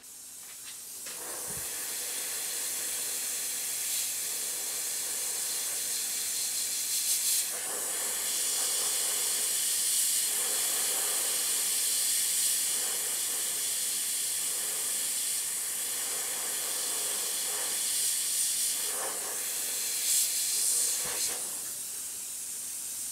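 Gravity-feed airbrush spraying paint: a steady hiss of air that builds about a second in and cuts off suddenly at the end.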